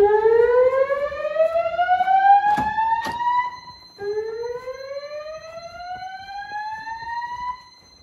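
Notifier fire alarm voice-evacuation speakers sounding the slow-whoop alert tone: two loud rising sweeps, each climbing for about three and a half seconds, the second starting halfway through. This is the tone that comes before the recorded evacuation message in each cycle. Two sharp clicks sound partway through the first sweep.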